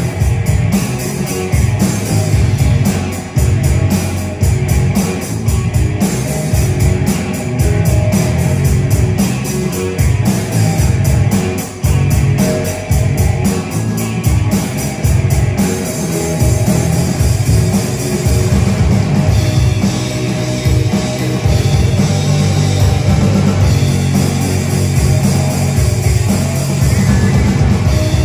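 A small rock band playing loudly together on drum kit, bass guitar and electric guitar through amplifiers, with no vocals. A fast, even beat runs through the first half and then loosens.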